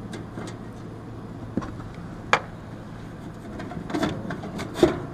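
A few sharp clicks and knocks of hand work on an air conditioner condenser's access panel and screws, the sharpest about two seconds in and a louder pair near the end, over a faint steady hum.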